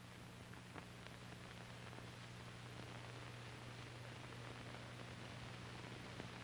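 Faint steady hiss and low hum of an old film soundtrack, with a few faint clicks.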